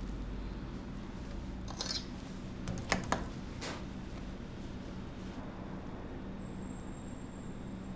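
Kitchen sounds during food prep: a steady low hum with a few sharp clicks and clinks of utensils about two to four seconds in, and a faint high whine near the end.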